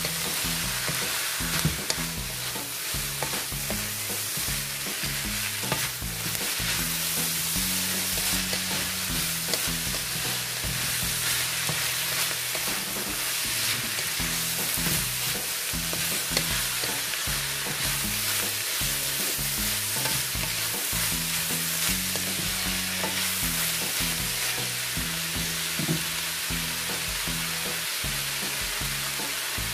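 Green beans and minced pork sizzling in a hot wok, stirred and tossed with a wooden spatula: a steady frying hiss with light scraping and clatter from the stirring.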